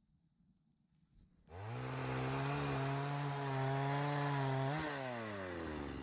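Chainsaw coming in about a second and a half in, its revs climbing quickly, then running steadily at high speed. Near the end the throttle is let off and the pitch falls away.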